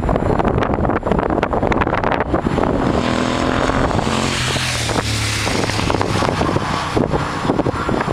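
2006 Triumph Scrambler's 865 cc parallel-twin engine, breathing through Norman Hyde Togas exhaust pipes, as the motorcycle rides past: the exhaust note comes up about three seconds in, is loudest in the middle and drops in pitch as the bike goes by, then fades. Heavy wind buffeting on the microphone throughout.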